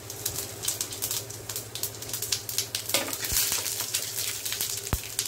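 Cumin seeds and asafoetida crackling and spluttering in hot mustard oil in a nonstick frying pan, the tempering (tadka) for dal, as a dense run of fine rapid pops. A couple of dull knocks fall about three and five seconds in.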